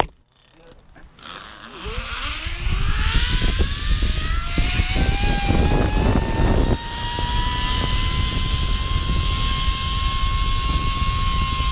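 Zip line trolley pulleys running along the steel cable: a whine that rises in pitch for several seconds as the rider picks up speed, then holds steady, with wind rushing over the microphone. A sharp click comes right at the start.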